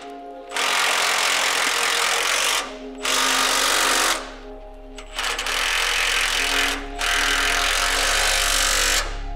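Milwaukee M12 Fuel cordless power tool running in several bursts of one to two seconds each with short pauses between, run down on the catalytic converter shield's bolts.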